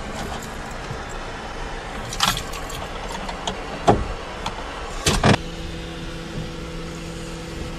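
Car ignition key and keychain being worked in a car that will not start: several sharp clicks and a jingle of keys, and no engine catching. The owner suspects water from the car wash got into the engine. A steady hum comes on about five seconds in.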